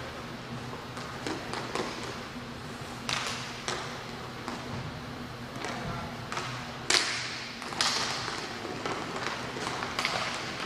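Inline hockey sticks and puck clacking sharply against the rink floor and each other, several separate hits with echoing tails, the loudest a little past the middle around a faceoff, over a low steady hum.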